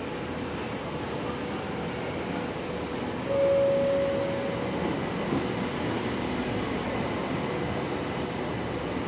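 Electric metro train pulling into an underground station platform, its running noise steady as it slows alongside the platform. A little over three seconds in, a single steady beep sounds for about a second and a half.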